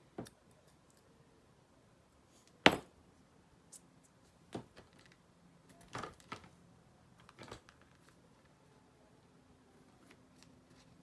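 Small metal regulator parts and tools clicking and knocking as they are handled and set down on a workbench. There are about half a dozen separate clicks, the loudest a sharp knock a few seconds in, over a faint steady hum.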